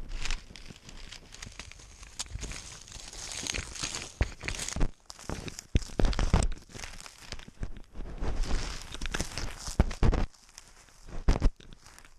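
Dry straw and thin plastic sheeting rustling and crinkling as a cat pushes through them, with irregular crackles and a few dull thumps from the body-mounted camera bumping and brushing against its fur.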